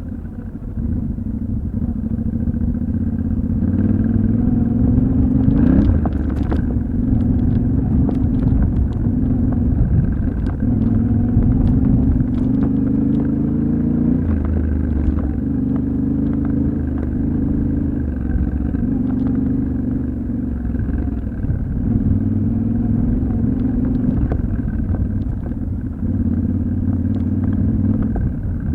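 Yamaha Ténéré 700's 689 cc parallel-twin engine running under way off-road, its pitch climbing and dropping several times with throttle and gear changes. Scattered sharp clicks and knocks ride over it, mostly in the first half.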